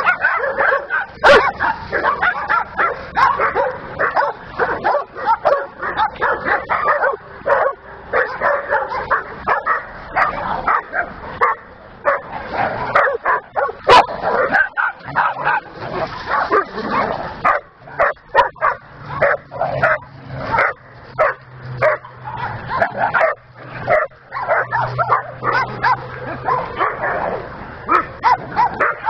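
Several dogs at play, barking and yipping over and over in quick, overlapping calls.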